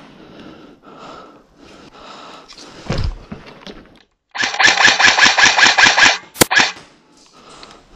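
An airsoft rifle fires close to the microphone: a rapid full-auto burst of about two seconds, then two single shots. A dull thud comes a little earlier.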